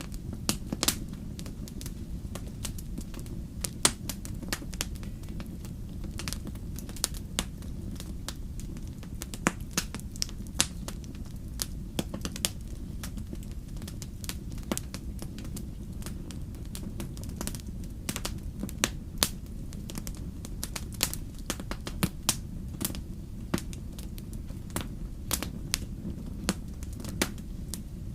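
Fire burning in a fireplace, crackling with irregular sharp pops and snaps, a few every second and some much louder than the rest, over a steady low rumble.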